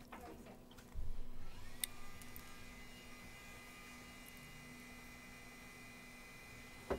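Low steady electrical hum with a thin high whine that starts with a click about two seconds in; a short low thump about a second in.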